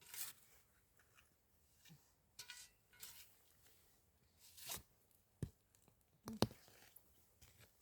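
Short bursts of rustling and crackling from something being handled, with a sharp knock about five and a half seconds in and a louder one about a second later.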